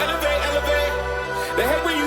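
Hip hop music with a heavy bass line and a melodic hook, in an instrumental gap between rapped verses.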